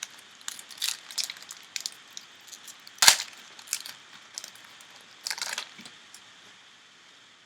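A trading-card pack wrapper being torn open and handled: scattered crinkles and crackles, with one sharp crack about three seconds in.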